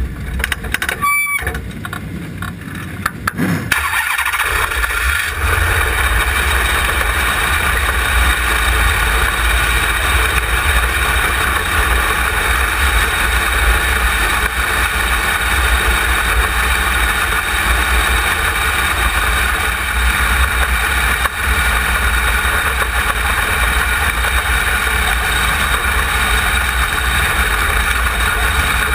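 Onboard sound of a wingless sprint car running at pace speed on a dirt track: engine rumble and wind rush on the in-car camera, steady and loud. It is quieter for the first few seconds, with a sharp click about a second in.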